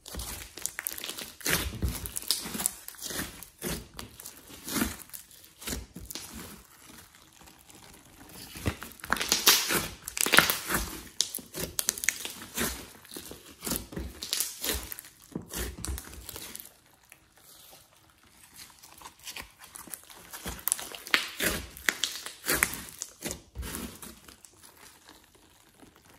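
Glossy slime with clay and glitter mixed in being squished, folded and stretched by hand, giving a run of irregular wet clicks, pops and crackles. The clicking is busiest about a third of the way in and thins out briefly about two-thirds through.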